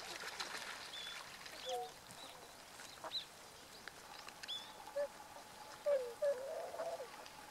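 Bewick's swans calling: scattered short, soft honking calls, with a louder cluster of calls about six to seven seconds in, and thin high notes mixed among them.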